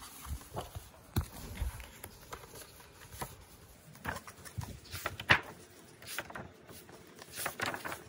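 Paper pages of colouring books being flipped by hand: irregular rustles and soft flaps, the loudest about five seconds in.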